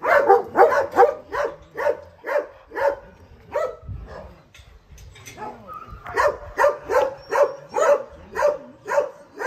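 Dogs barking steadily in a shelter's kennels, about two barks a second, with a lull of a couple of seconds about four seconds in before the barking picks up again.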